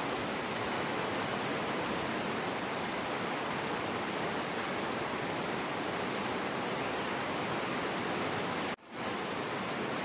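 White-water river rapids rushing steadily over boulders through a narrow rock gorge. The sound cuts out for an instant near the end.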